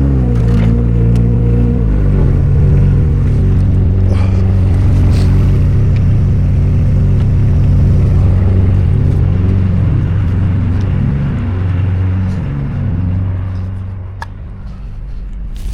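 A farm vehicle's engine running steadily and loudly, with a few knocks and rattles on top. Its level drops off near the end.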